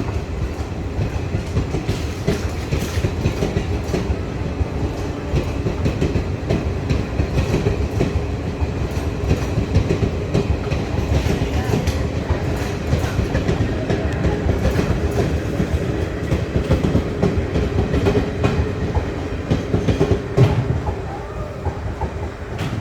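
Express passenger train passing at speed without stopping, its wheels clattering steadily over rail joints.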